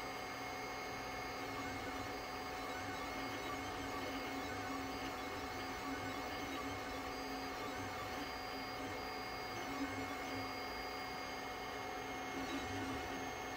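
3D printer switched on and idling, giving a steady hum with constant thin whining tones over it.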